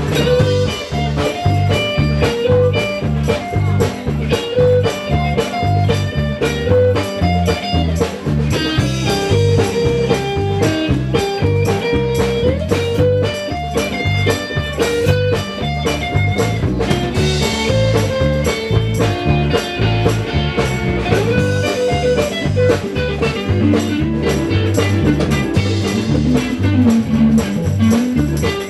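Live blues-rock band playing an instrumental passage with no singing: electric guitar, bass, drums and keyboard over a steady beat.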